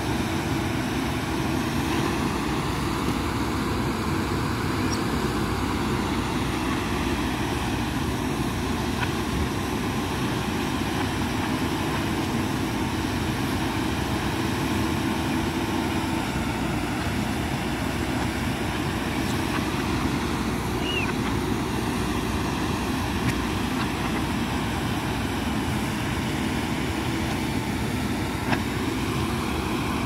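Diesel engines of two JCB 3DX backhoe loaders running steadily under load while they dig soil with their backhoe arms, a constant drone.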